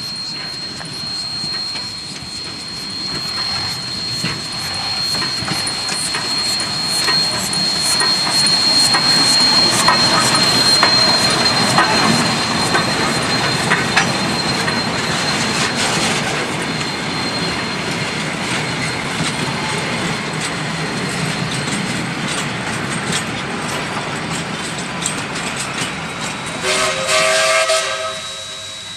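DD17 class 4-6-4T tank steam locomotive 1051 running past with its train, its wheels clicking over the rail joints, loudest about ten seconds in as it passes close. Near the end comes a short steam whistle blast of about a second and a half.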